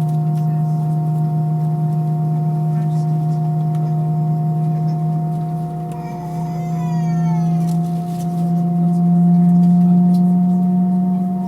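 Airbus A320-232 cabin noise in flight: the steady drone of its IAE V2500 engines, a low hum with higher overtones. The engine tone rises slightly in pitch and gets a little louder about eight seconds in.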